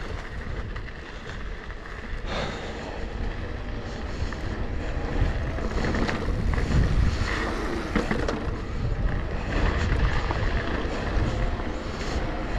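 Wind buffeting the microphone over the rumble of a downhill mountain bike running fast over rough trail, with a few sharp knocks from the bike as it hits bumps.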